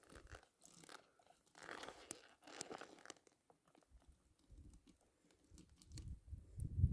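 Faint crinkling and crunching of a soft plastic water pouch being handled and squeezed through a water filter, with scattered small clicks. A low wind rumble on the microphone builds near the end.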